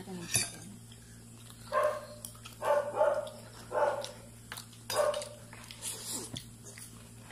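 A dog barking about five times in short, pitched barks.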